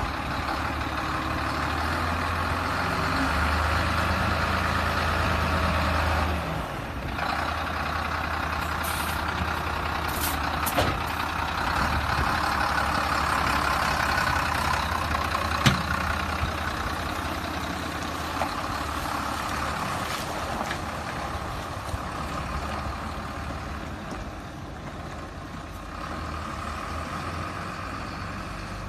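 Heavy diesel truck engine running steadily, with a few sharp clicks.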